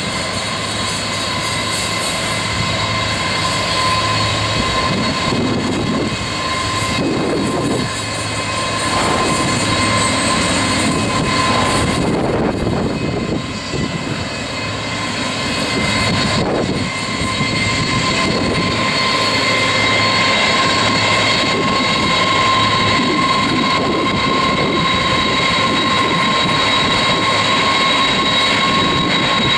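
Boeing 747-200F's four jet engines running: a steady high whine over a broad rush of jet noise, growing somewhat louder in the second half.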